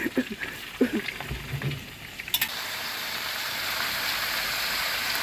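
Pieces of eel deep-frying in hot oil in a wok: a sizzling hiss that starts suddenly with a click about halfway through and then holds steady.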